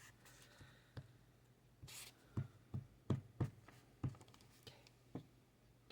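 Glue stick rubbed and pressed on paper: a brief scrape about two seconds in, and a string of soft, irregularly spaced knocks against the desk, most of them in the second half.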